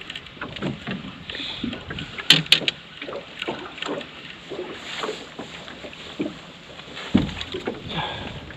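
Small boat on the open ocean: water slapping irregularly against the hull, with light wind on the microphone. Two sharp clicks come a little over two seconds in, and a low thump comes about seven seconds in.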